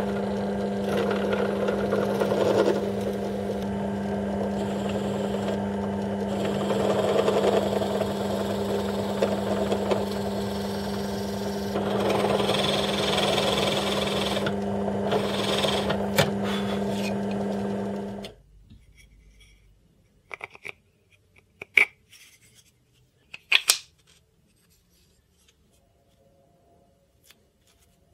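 Electric drill in a drill stand running steadily while its bit bores into a wooden plate, the cutting noise swelling each time the bit is fed into the wood. The motor cuts off abruptly about 18 seconds in, followed by a few light knocks as the wooden piece is handled.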